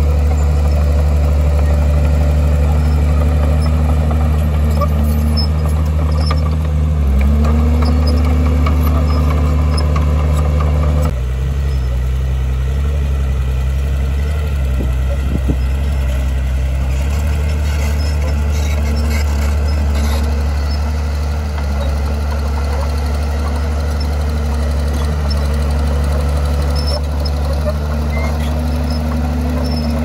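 Diesel engine of heavy earthmoving machinery running steadily, its pitch rising and dipping slightly now and then. The sound changes abruptly about eleven seconds in, then carries on running.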